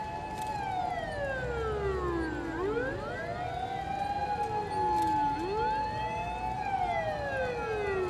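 Several fire engine sirens wailing together. One holds a steady high tone while the others repeatedly slide slowly down in pitch over about two seconds and then sweep quickly back up.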